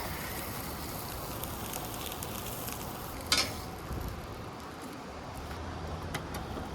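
Steak sizzling as it sears in a hot pan, an even crackling hiss, with one sharp click about three seconds in.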